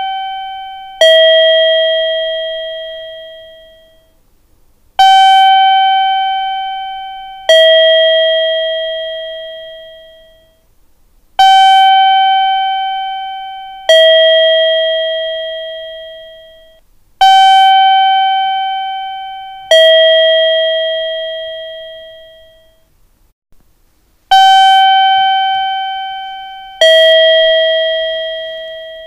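Two-tone electronic chime, a higher note and then a lower one about two and a half seconds later, each ringing out and fading. The ding-dong pair repeats evenly, about every six and a half seconds.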